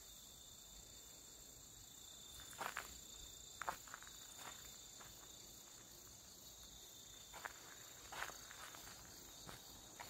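Faint, steady, high-pitched insect chirring, with a few soft footsteps on a grassy path.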